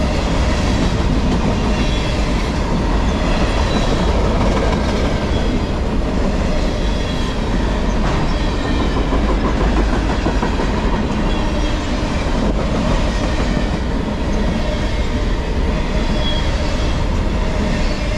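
Freight cars of a CSX manifest train rolling past close by at steady speed: a steady rumble of steel wheels on rail with clickety-clack over the rail joints and occasional faint high squeals.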